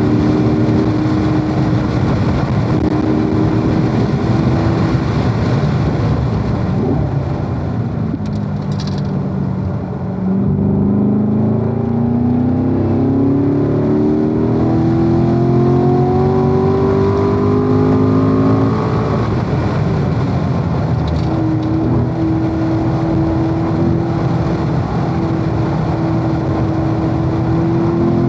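Corvette V8 engine driven hard on a race circuit. The engine note drops and briefly quietens as the car slows, about eight to ten seconds in. It then climbs steadily under full throttle for several seconds, breaks briefly around twenty seconds in, and holds a high steady note near the end.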